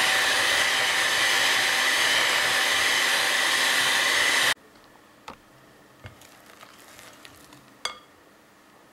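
Electric hand mixer running steadily, its beaters whipping heavy cream to stiff peaks in a glass bowl, stopping suddenly about four and a half seconds in. A few faint knocks of a spatula against the glass bowl follow.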